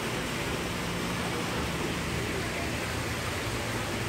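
Steady rushing and churning of water circulating in a stingray pool, an even noise without distinct splashes.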